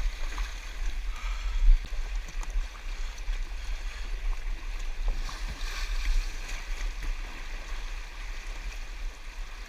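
Flowing river water rushing steadily, over a strong low rumble on the microphone.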